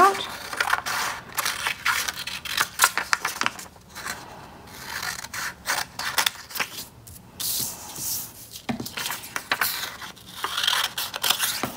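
Scissors cutting through plain white paper in an irregular run of snips, with the paper rubbing and rustling as it is handled and turned between cuts.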